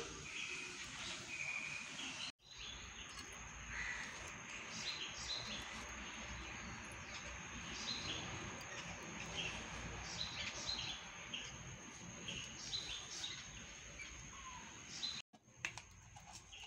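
Background ambience of small birds chirping on and off over a steady hiss, with a thin steady high tone. The sound drops out for a moment twice, a couple of seconds in and near the end.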